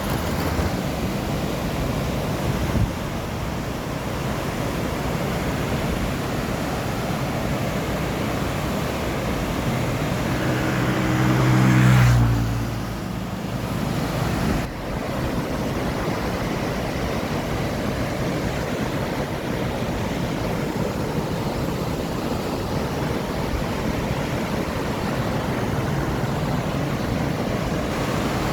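Flowing river water rushing steadily, with wind buffeting the microphone. A little before the middle, a low pitched hum swells for about two seconds and then cuts off abruptly.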